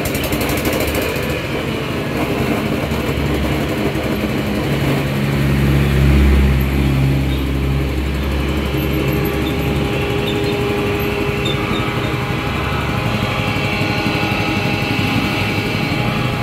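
Small single-cylinder petrol engine running, belt-driving a disk flour mill. The engine's note swells louder and deeper from about five seconds in, then settles back to a steady run after about ten seconds.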